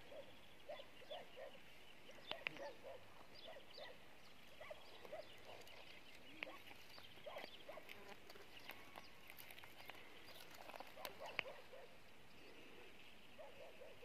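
Faint open-air animal ambience: a scattered chorus of short, low calls repeating irregularly, with high bird chirps over it and a few sharp clicks.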